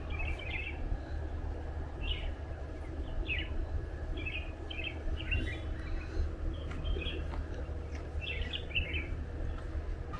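Songbirds chirping in short, quick phrases every second or two, over a steady low rumble.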